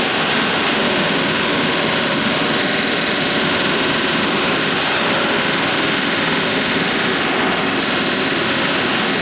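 Pneumatic riveting hammer working against the steel hull plating of a ship: a loud, continuous metallic hammering clatter without pause.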